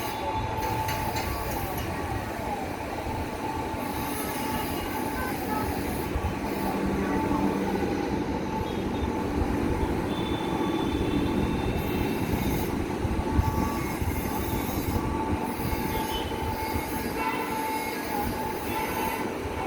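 Indian express train running past: a continuous heavy rumble of the coaches on the track, with a thin steady squeal of the wheels on the rails over it.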